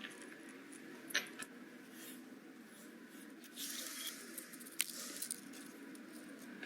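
Small clicks and a short scrape of tiny parts being handled on a workbench: a sharp click about a second in, a brief rustling scrape past the middle and another click soon after.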